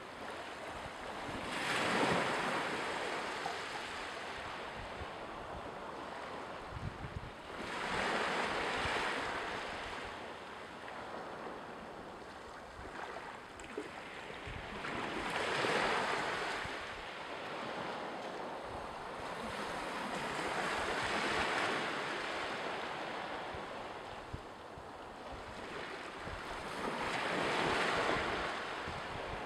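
Sea waves washing onto the shore in slow swells, five in all, each building and fading over a few seconds, over a steady wash of water. Wind rumbles on the microphone throughout.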